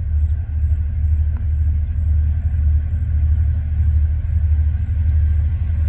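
Steady low rumble of a diesel locomotive (TasRail DQ class) approaching at a distance at the head of a loaded coal train.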